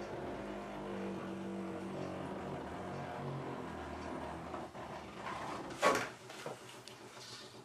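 A steady low hum, then about six seconds in a single sharp knock as the plastic developing tray is shifted against the sink.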